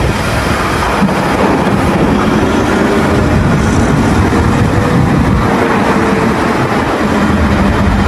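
Caterpillar 992G wheel loader's diesel engine running steadily under load as the loader raises and tips its bucket into a dump truck.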